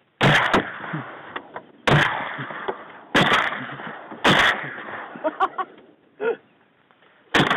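Shotgun blasts from duck hunters shooting from a blind: four shots in about four seconds, each fading in a long echo, and another shot right at the end.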